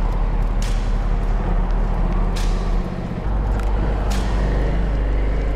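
Motorcycle engine running under way, with wind rush on a helmet-mounted camera; the low rumble briefly drops away about three seconds in.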